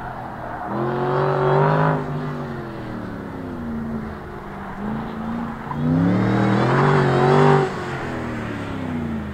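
Ford Shelby GT500's supercharged V8 accelerating hard twice through the autocross course, the engine pitch climbing in each surge, then falling away as the throttle lifts between them and near the end.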